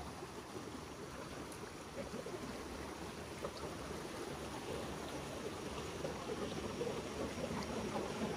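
A stream of water flowing steadily.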